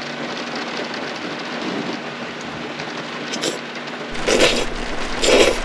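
Steady rain falling around an open car. Near the end come two loud slurps as a mouthful of cold noodles is sucked in.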